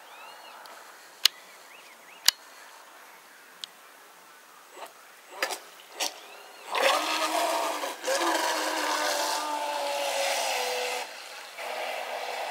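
Radio-controlled speedboat throttled in a few short blips, then speeding off about seven seconds in, its motor whining loudly over the hiss of water, the pitch sliding as it runs and easing off briefly before picking up again. Two sharp clicks sound in the first few seconds.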